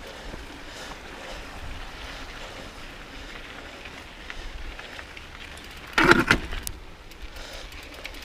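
Mountain bike rolling along a dirt singletrack, with steady trail and wind noise on the handlebar camera's microphone; a brief loud burst stands out about six seconds in.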